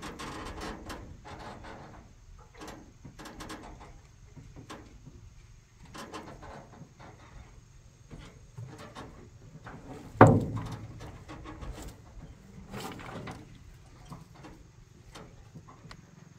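Wooden knocks, scrapes and creaks from a wooden boat and a bamboo-and-log frame being stepped on and handled, with one loud thump about ten seconds in.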